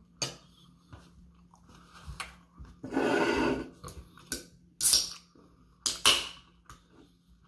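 An aluminium Pepsi can being handled and pulled open. The pull tab gives sharp clicks, and there are short rushing hisses; the longest and loudest, a little under a second, comes about three seconds in.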